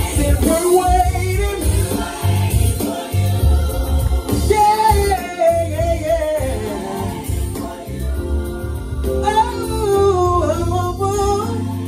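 A male gospel singer sings live into a handheld microphone over instrumental music with a heavy bass, his voice bending through long runs.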